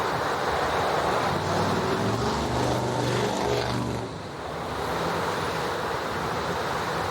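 Motor vehicle traffic with steady road and wind noise. A vehicle's engine hum swells for a couple of seconds around the middle, then dips.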